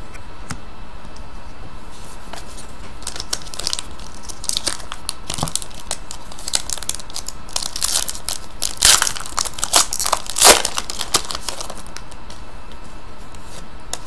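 A trading card pack's wrapper being torn open and crinkled by hand. Irregular crackles and rips start about three seconds in and are loudest around nine to ten seconds in.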